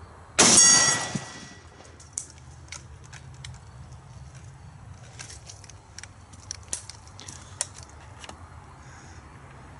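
A single shot from an SKS Paratrooper rifle in 7.62×39 hitting a steel gong target, about half a second in; the steel rings briefly as the shot dies away. A few faint clicks follow.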